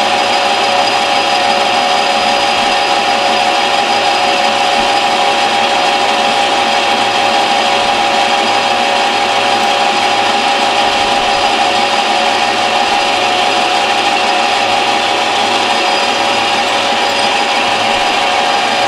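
Metal lathe running steadily with a constant whine from its drive while a cutting tool turns down the outside of a spinning metal workpiece.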